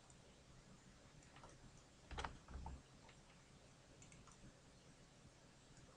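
Near silence: room tone with a few faint clicks of a computer mouse and keyboard, the clearest two about two seconds in.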